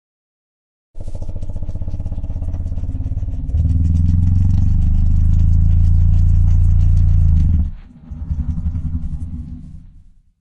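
Created sound-effect call of a horned dinosaur (Ojoceratops): a low, rasping growl that starts about a second in and swells louder partway through. It breaks off, and a shorter second growl follows and fades out.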